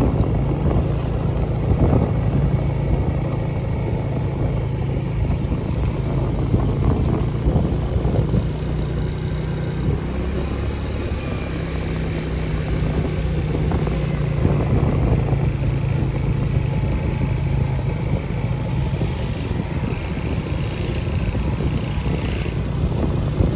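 Small motorcycle engine running steadily while riding along, its pitch shifting slightly with speed, with wind buffeting the microphone.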